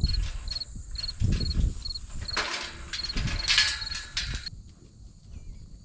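Insect chirping, about two short high chirps a second, with rustling and low knocks from handling over it. The chirping and rustling cut off abruptly about four and a half seconds in.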